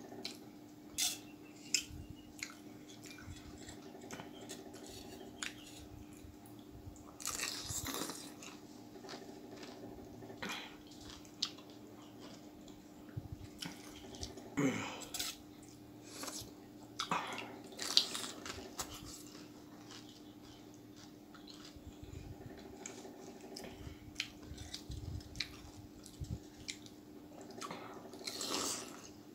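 Pani puri being eaten: crisp hollow puri shells cracked open with a finger and bitten, with wet chewing and crunching and occasional light clinks of steel tableware, in scattered short bursts between quieter stretches.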